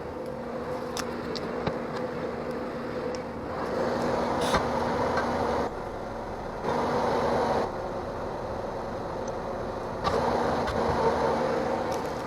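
Bobcat T770 compact track loader's diesel engine running with a steady hum, swelling louder three times as the machine works.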